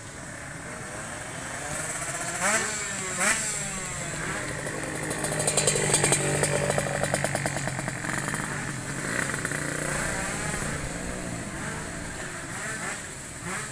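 Two-stroke tuned drag-racing motorcycle engines revving with short throttle blips, then a bike running hard at high revs, loudest about six seconds in as it passes, and fading away after.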